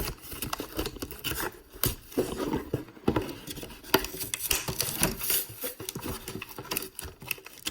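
Irregular clicks, taps and rubbing as small metal flashlights and their packaging are handled.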